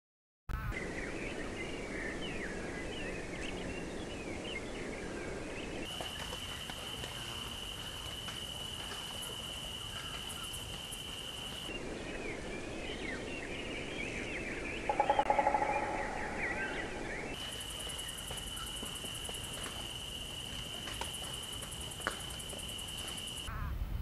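Birds chirping and twittering, alternating with a steady high-pitched insect drone with fast ticking above it. About fifteen seconds in, a louder, lower call sounds for about a second.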